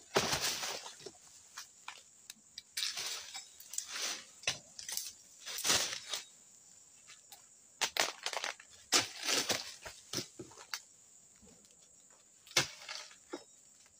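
Oil palm harvesting with a long-poled sickle among the fronds and undergrowth: irregular bursts of rustling and crunching with sharp snaps. The loudest burst comes right at the start.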